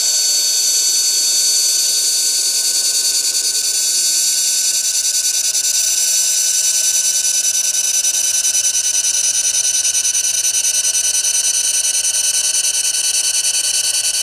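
An xTool MetalFab handheld laser welder running while it welds a 316 stainless silencer end: a steady, loud hiss with several high, steady whining tones, unchanging as the weld goes on.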